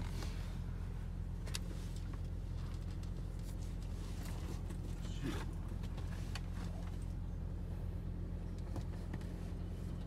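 Steady low rumble of a car cabin heard from inside the car, with scattered rustles, scrapes and clicks from a handheld phone being moved against the window and clothing.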